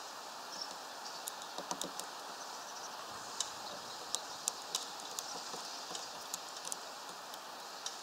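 A tit hammering at a branch with its beak: irregular sharp taps, thickest in the middle, over a steady hiss.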